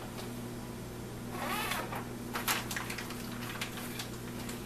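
Plastic zip-top bag with a pork tenderloin and marinade inside rustling and crinkling as it is handled, with a few faint clicks, over a steady low hum.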